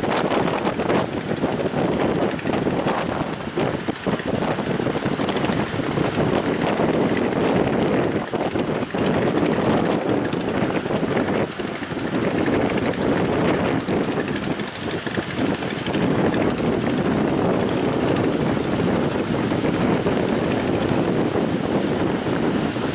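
Strong wind blowing across the microphone over the wash of sea waves, a loud, steady rushing.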